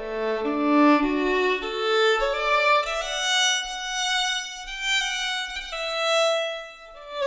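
Slow instrumental music: a melody of held notes, each lasting about half a second to a second, climbing higher in pitch through the passage.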